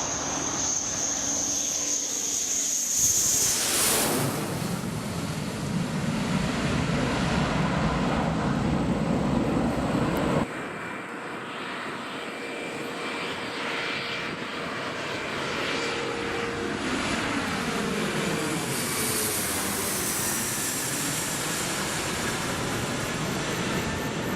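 F-15 fighter's twin jet engines on a low landing approach. A high whine builds, and about four seconds in it gives way to a loud rush and rumble as the jet passes overhead. The sound drops off abruptly about ten seconds in, and the whine of another approaching jet builds toward the end.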